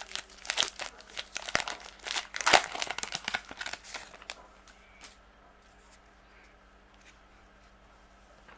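Foil wrapper of a baseball card pack being torn open and crinkled: a run of sharp crackles for about four seconds, then only a few faint ticks.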